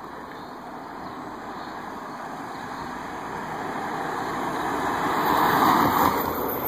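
A car passing close by on the road: its engine and tyre noise builds steadily for several seconds, is loudest about six seconds in, then fades away.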